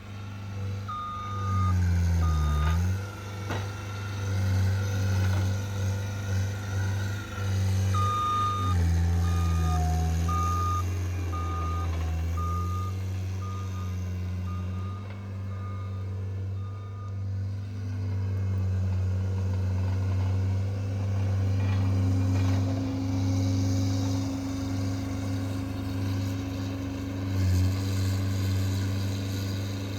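John Deere 323D tracked skid steer's diesel engine running under changing load, its note dipping twice as it works. Its backup alarm beeps twice near the start, then in a run of about ten evenly spaced beeps through the middle as the machine reverses.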